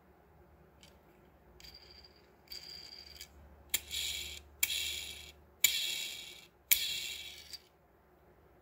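Plastic wheels of a Hot Wheels Ferrari Testarossa die-cast toy car flicked by a finger and spinning freely on their axles, whirring down each time. There are two faint short whirs, then four louder ones, each starting with a sharp click and dying away within about a second.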